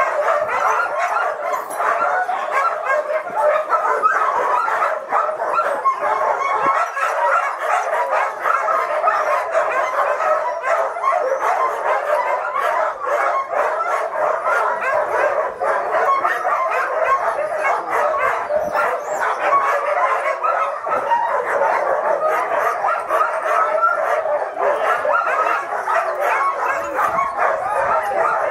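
Many sled dogs barking at once in a dense, unbroken din that never lets up: the eager noise of a harnessed team and kennel dogs waiting to run.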